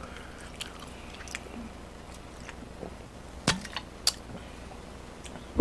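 Soft chewing and handling sounds with a few sharp clicks, the loudest two about three and a half and four seconds in, as a plastic drink bottle and a cup are handled.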